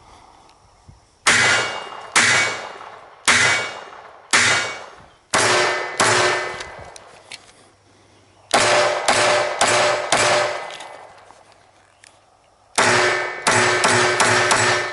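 Gunshots from a 9mm GS17, a Glock 17 pistol fitted with a stock as a short-barreled rifle. About six shots come roughly a second apart, then a quick string of about five, then after a pause another quick string of about six. A ringing tone hangs behind the rapid strings.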